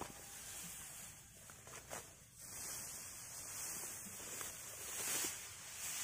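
Dry, freshly cut rice straw rustling as it is gathered and pressed into a pile by hand, over a steady high hiss.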